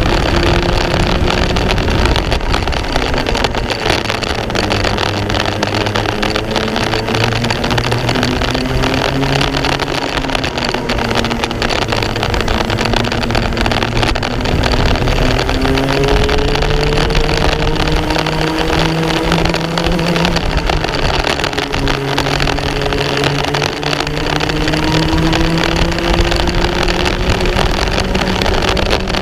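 Racing kart engine heard onboard at full race pace. Its pitch climbs as it accelerates and drops as it slows, about three times, under a constant rush of wind and track noise.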